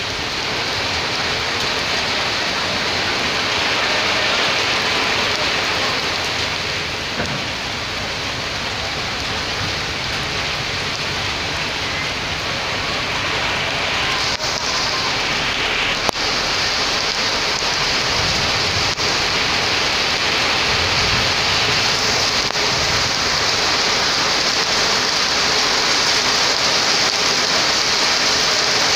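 Steady rain falling, an even hiss that grows stronger about halfway through. A single sharp click sounds just after it strengthens.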